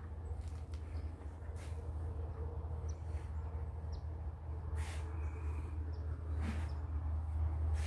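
Outdoor ambience: a steady low rumble that grows slowly louder, with a few faint, short bird chirps and several soft knocks.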